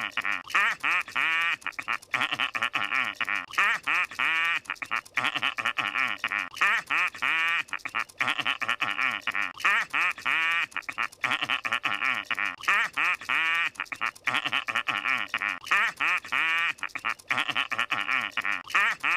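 Squidward's cartoon laugh, played over and over as a looped sound effect: rapid runs of short pitched laugh syllables in clusters, with brief breaks between them.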